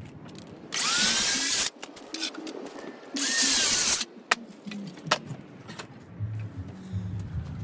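Power drill run in two short bursts of about a second each, each one spinning up as it starts. Scattered clicks and knocks between and after the bursts.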